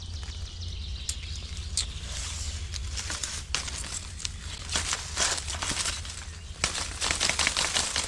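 Leafy branches and brush rustling and swishing with many sharp twig snaps, denser about five seconds in and again near the end, as they are pushed aside and slashed with a machete. A steady low rumble runs underneath.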